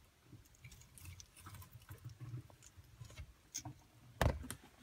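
A tenrec chewing mealworms: faint, scattered small crunches and clicks. A single loud thump about four seconds in.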